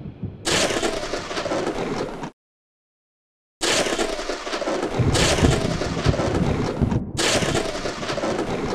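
Thunderstorm sound effect: a loud, steady rush of rain with cracks of thunder. It cuts out completely for about a second near the middle, and a deep thunder rumble joins the rain from about five seconds in.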